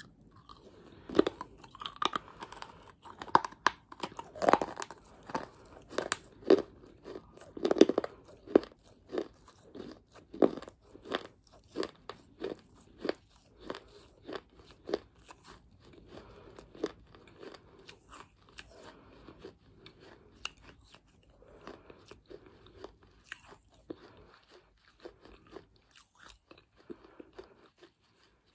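Baked clay being bitten and chewed close to a lapel microphone: sharp, crisp crunches about once or twice a second, loudest in the first ten seconds, then softer, grittier chewing that thins out before stopping near the end.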